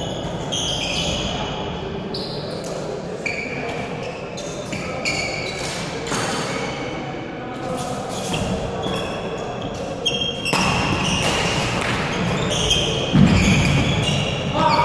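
Badminton rally on a wooden gym floor: repeated sharp racket strikes on the shuttlecock and short shoe squeaks, over background chatter in a large hall. A heavy thud about thirteen seconds in is the loudest sound.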